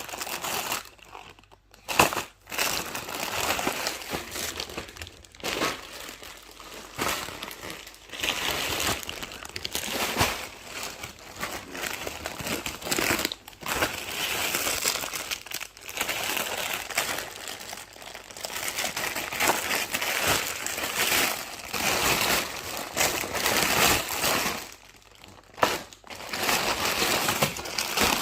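Crinkly packaging, likely a chocolate wrapper, being handled and crumpled in irregular rustling spells, with brief pauses here and there.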